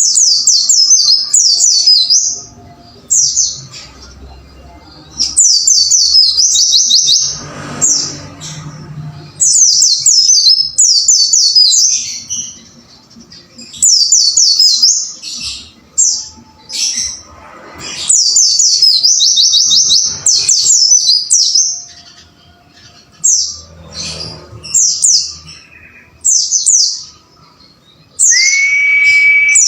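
Pleci (white-eye) singing: loud phrases of fast, high, sweeping chirps, each lasting a second or two, repeated again and again with short pauses between. Near the end a steady held whistle-like tone sounds under the song for about a second and a half.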